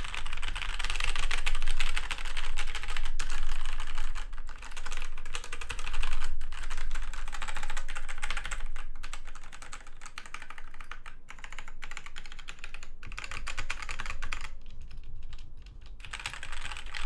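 Rapid typing on a DMK02 mechanical keyboard with off-brand red linear switches: a dense, continuous clatter of keystrokes, thinning briefly near the end.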